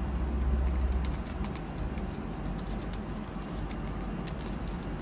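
Faint rustling and small clicks of a badminton overgrip being wound by hand around the racket handle, over a low rumble that is strongest in the first second.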